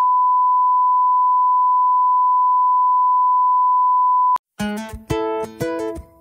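A steady, loud bars-and-tone reference beep, one unchanging pure tone, that cuts off suddenly about four seconds in. After a short gap, plucked guitar music begins.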